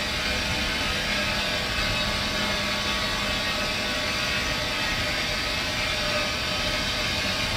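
Steady machinery drone of a waste-paper recycling plant: an even rushing noise with a faint low hum that holds unchanged throughout.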